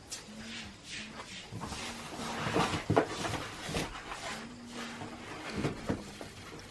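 Vacuum cleaner packaging and parts being handled out of the box: irregular rustling with light knocks and clicks.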